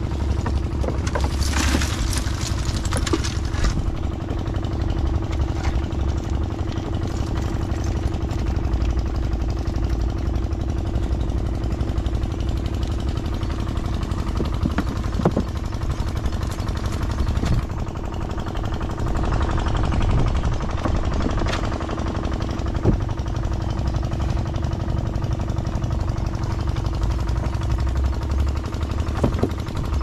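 A small engine running steadily, with a fast low thumping and a steady hum. About one to three seconds in, water splashes and drips as a net trap is lifted out.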